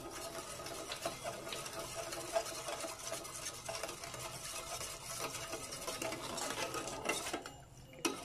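Metal spoon stirring milk and sugar in a metal saucepan, scraping and lightly clinking against the pan's bottom and sides as the sugar dissolves. The stirring eases briefly near the end.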